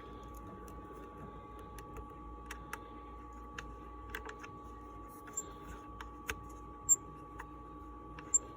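Scattered small clicks and light metallic ticks of speaker wires being fastened into a subwoofer's Allen-screw terminals, with a few sharper ticks in the second half, over a faint steady hum.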